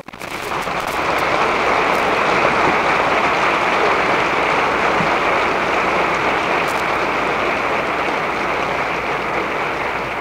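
Audience applauding: dense, steady clapping that starts suddenly, holds for several seconds and eases off slightly near the end.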